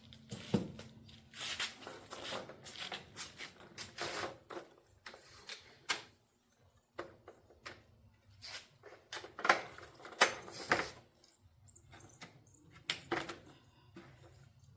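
Irregular clicks, knocks and rustling of something being handled, with a few sharper knocks about nine and ten seconds in and again near thirteen seconds.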